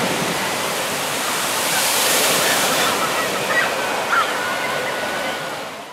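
A water coaster boat splashing down into the pool: a steady rush of thrown-up spray and churning water, heaviest about two seconds in, as the boat runs out through its wake.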